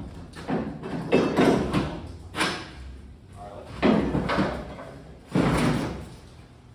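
A series of heavy knocks and thumps, about six in all, spread irregularly; each one cuts in suddenly and dies away within about half a second.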